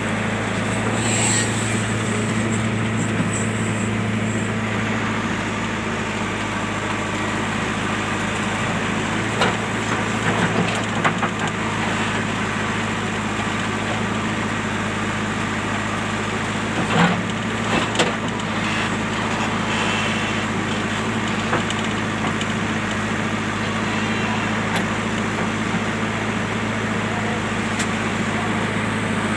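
Diesel engine of a JCB machine running steadily at a constant speed, with a few short clunks and knocks about a third of the way in and again just past halfway.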